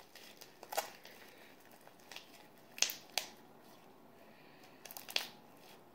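Homemade glue slime activated with Tide laundry detergent being squeezed and pulled between the hands, giving a few scattered wet clicks and pops, the loudest about three seconds in and again near five seconds.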